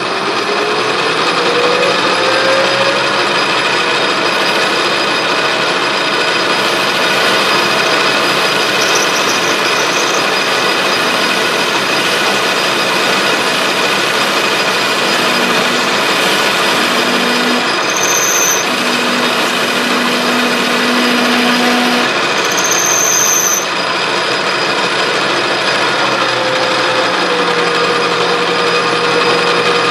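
Metal lathe turning a steel lead screw blank while a narrow parting tool plunge-cuts a thread-relief groove: steady cutting noise over the lathe's running hum. A tone rises over the first couple of seconds, and brief high squeals come from the cut about two-thirds and three-quarters of the way through.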